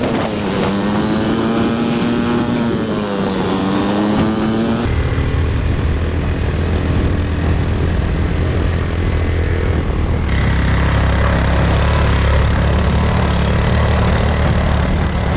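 An engine running, its pitch slowly rising and falling for the first five seconds or so; after an abrupt cut, a steady low rumble.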